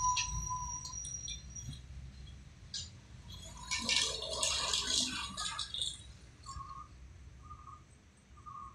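Truck engine rumbling low and fading as the truck drives off round the bend, with a rattling clatter around the middle. Near the end, a short high beep repeats about once a second.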